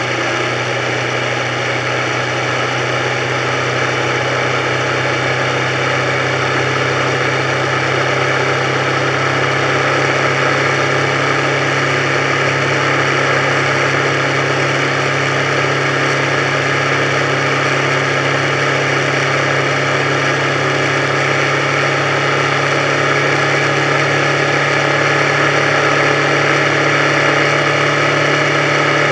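Motorcycle engine running steadily at cruising speed, heard from the bike itself along with road and wind noise.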